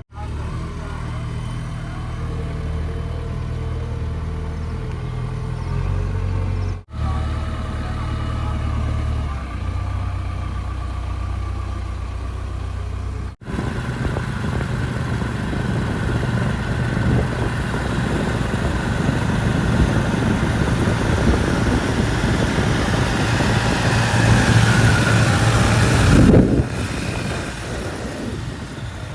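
Heavy diesel engine of a backhoe loader working: a steady low running note broken by two abrupt gaps. In the second half it grows louder and higher as the engine revs under load, then drops back sharply a few seconds before the end.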